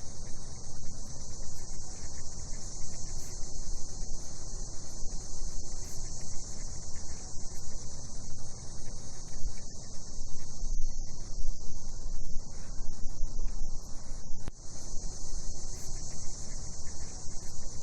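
Steady high-pitched chorus of night insects, with a low rumble underneath.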